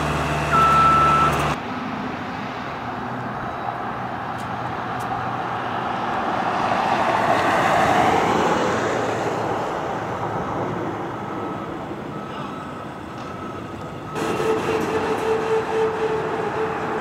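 Work-vehicle engines running: a steady engine hum with a short high beep in the first second or so. After a cut comes a rushing vehicle sound that swells to a peak about eight seconds in and fades. From about fourteen seconds there is again a steady engine hum with a tone over it.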